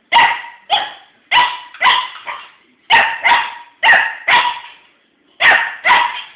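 A young small dog barking repeatedly at a toy pumpkin: about ten short, sharp barks, mostly in quick pairs, with a brief pause a little past the middle.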